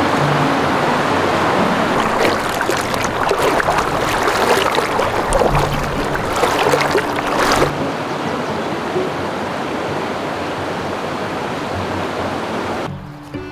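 Shallow mountain stream flowing, with close splashing from about two seconds in as someone wades through the water, ending abruptly near eight seconds. After that a steadier rush of moving water, and string music comes in right at the end.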